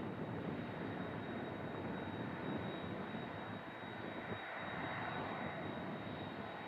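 The twin jet engines of a Boeing 767-200 running with a steady rumble and a thin high whine as the airliner rolls out along the runway after touchdown.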